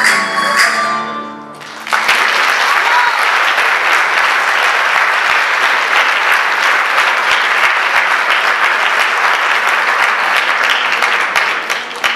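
A plucked-string rondalla (guitars and lutes) ends its piece on a fading final chord, then about two seconds in an audience breaks into applause, which continues steadily and tails off near the end.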